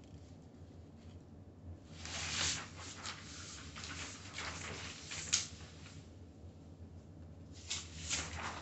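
Large sheets of drawing paper being handled and shuffled in an artist's portfolio case, rustling in spells, with one sharp snap a little past five seconds in.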